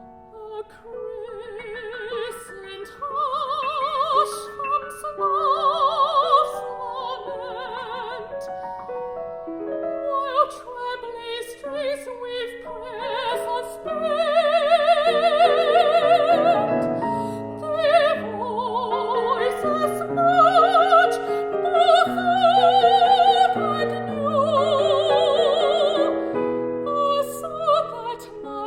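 Art song sung in a Peking Opera-influenced style, the voice holding high notes with wide vibrato over piano accompaniment. It gets louder about halfway through.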